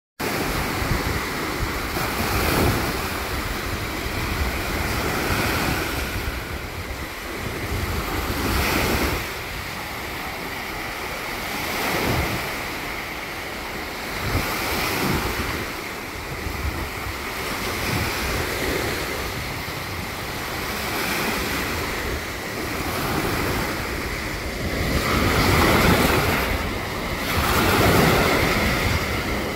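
Small lake waves breaking and washing up a sandy shore, swelling every few seconds and loudest near the end, with wind buffeting the microphone.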